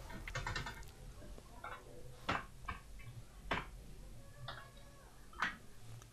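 Typing on a computer keyboard: soft, irregular keystrokes, with a few louder key clicks about two, three and a half, and five and a half seconds in.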